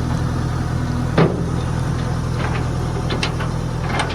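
JCB 3DX backhoe loader's diesel engine running steadily at low revs, with one sharp knock about a second in and a few lighter ticks after it.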